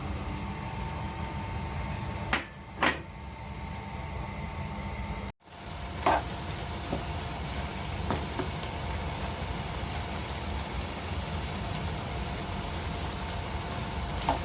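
Food sizzling in a frying pan after ingredients are added, with a few sharp clicks of a utensil against the pan, over a steady low rumble.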